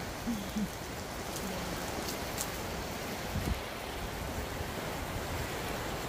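Heavy downpour of rain coming down in a steady hiss. A few brief faint sounds sit over it, about half a second in and again midway.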